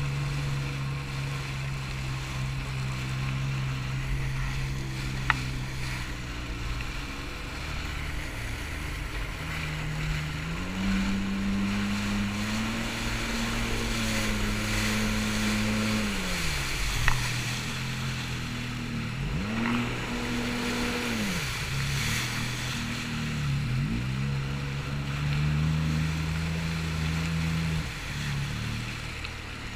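A small watercraft engine, a jet ski or motorboat, running over water with wind and water noise. Its pitch holds steady, then climbs, then drops and picks up again several times as the throttle is eased and opened. Two sharp clicks cut through, about 5 s and 17 s in.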